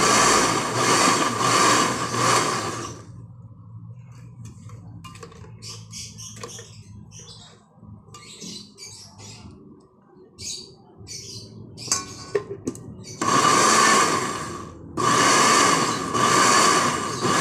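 Electric countertop blender with a glass jar running under load, pureeing jackfruit into thick cassava cake batter; it stops about three seconds in, then runs again near the end in two bursts with a short break between. In the pause, light clicks and scraping of a spatula working the mix in the jar.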